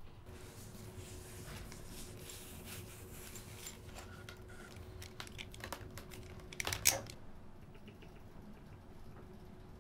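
A zippered fabric pouch being unzipped and rustled open, then plastic headphones handled with a run of light clicks and knocks, with a louder brief clatter about seven seconds in as they are set down on the desk.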